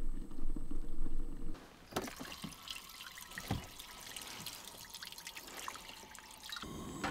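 A louder steady rushing sound for about the first second and a half, then a thin stream of water trickling from the spigot of a plastic water jug into a cast-iron skillet, with a few light clicks.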